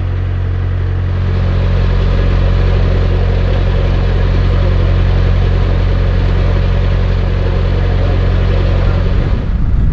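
Narrowboat's diesel engine running steadily under way, a little louder from about a second in; near the end its steady note breaks up into rougher low rumbling.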